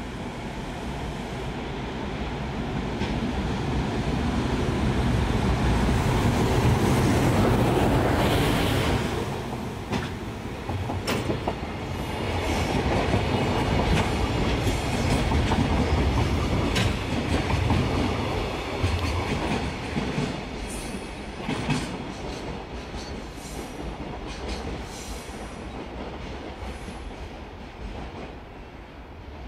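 An EF510 electric locomotive hauling a freight train passes by. The rumble builds to its loudest about seven to nine seconds in, then the wagons' wheels click over rail joints as the train goes by, fading near the end.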